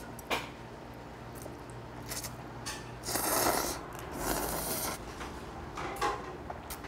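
Ramen noodles from a plate of rabokki being slurped up in two long, loud slurps, about three and four seconds in. A few light clicks of metal chopsticks come before and after.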